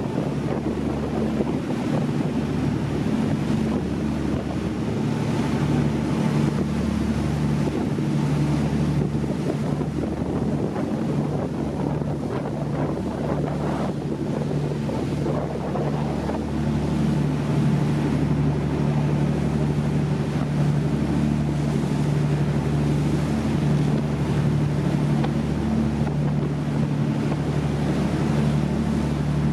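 Boat motor running at a steady drone, with water rushing past the hull and wind buffeting the microphone.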